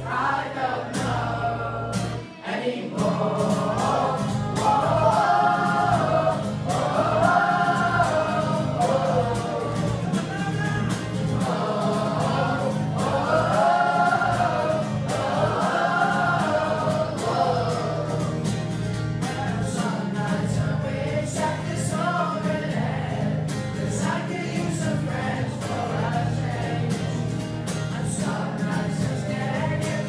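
A group of young voices singing a song together in unison, accompanied by acoustic guitar, with a brief break about two seconds in.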